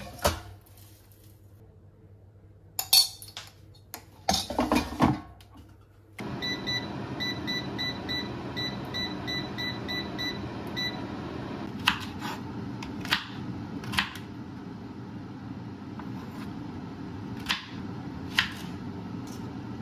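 Koryo air fryer: its basket clatters and clunks into place, then the fryer starts with a steady fan whir and a quick run of short electronic beeps as its controls are set. The whir carries on while a kitchen knife chops through okra onto a wooden cutting board, several sharp taps.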